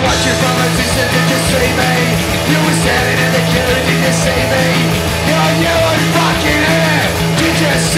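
Punk rock band playing live: electric guitars and drums, loud and unbroken.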